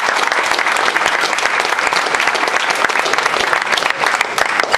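An audience of many people clapping, dense and steady, beginning to thin out near the end.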